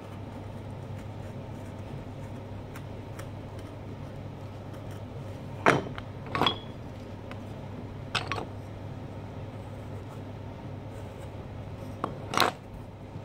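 A small knife carving into a pumpkin: a few short, sharp scrapes and clicks, two about halfway through, one a little later and two close together near the end, over a steady low hum.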